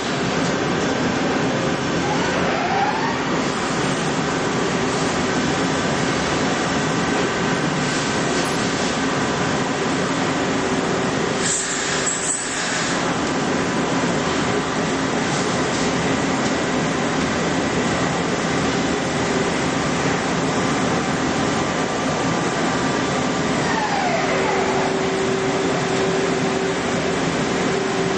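Multi-tasking CNC lathe running, with a steady coolant hiss and several machine tones. A spindle whine rises in pitch about three seconds in and falls again about twenty-four seconds in, settling on a lower steady hum. The noise breaks briefly about twelve seconds in.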